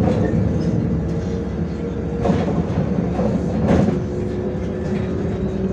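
Interior running noise of a MAZ-105 articulated city bus under way: engine and drivetrain drone with a steady whine that drops in pitch about four seconds in, and body rattles and knocks over the road twice.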